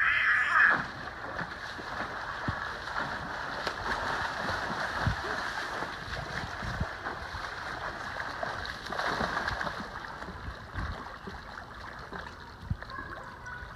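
Water splashing and sloshing as a person swims across a swimming pool, a little louder in the first second.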